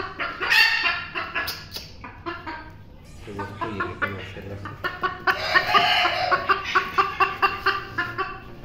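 Bantam chickens clucking in quick runs of short notes, growing louder and denser about five seconds in. The birds are still easily frightened.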